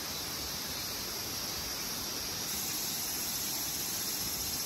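Steady outdoor forest ambience: an even hiss of insects, changing slightly about halfway through.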